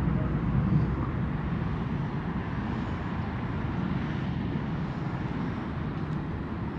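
Steady low outdoor rumble of city background noise, even throughout with no distinct events.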